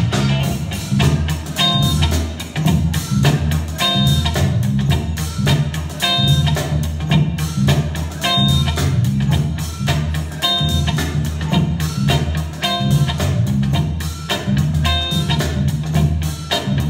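Background music with a quick, steady beat and a bass line, and a short bright melodic figure that comes back about every two seconds.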